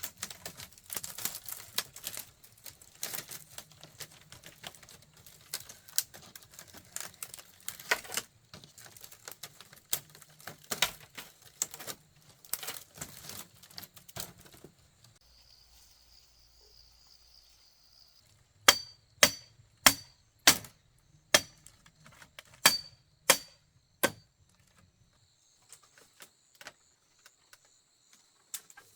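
Hand-tool work on bamboo: rapid, irregular tapping and clattering for about fifteen seconds, then after a pause about nine loud, sharp strikes roughly two a second, each with a brief ring.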